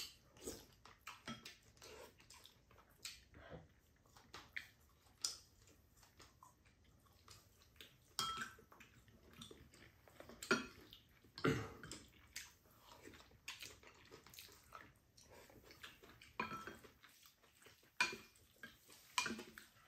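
Two people eating: spoons clicking and scraping against ceramic bowls, with chewing between the clinks.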